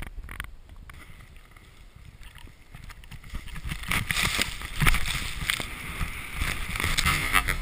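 Snowboard sliding through deep fresh powder: a rushing hiss that grows louder about three seconds in, with several thumps as the board hits the snow.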